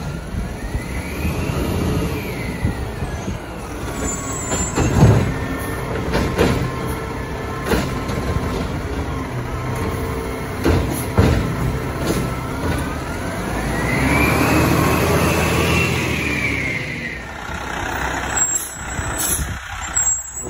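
Peterbilt 520 garbage truck with a Bridgeport Ranger side-loader body running close by, with air-brake hiss and several sharp knocks. A whine rises and falls twice as the engine speeds up and settles.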